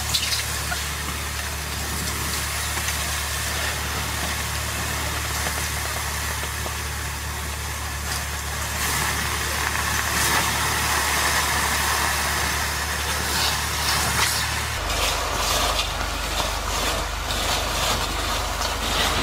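Water from a garden hose splashing and hissing onto a hot steel drum oven, boiling off as steam as the oven is cooled. A steady low hum runs underneath and shifts in pitch about 15 seconds in.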